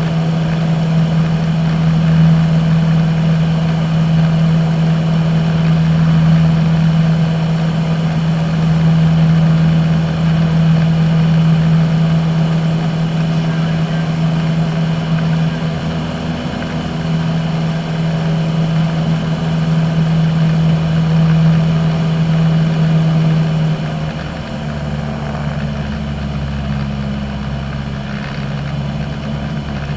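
A single-engine light aircraft's engine and propeller heard from inside the cockpit in flight: a loud, steady drone. About three-quarters of the way through it drops a little in level and its tone changes.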